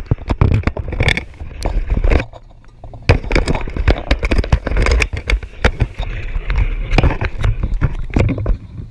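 Close handling noise on a GoPro as hands grip it and set it down on a concrete edge: a quick, loud run of scrapes and clicks from the housing and fingers rubbing on it, with a short lull a little over two seconds in.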